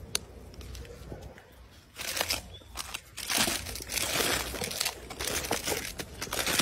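Plastic snack wrappers crinkling and rustling as packets are grabbed and pulled from a cardboard box, starting about two seconds in and growing busier.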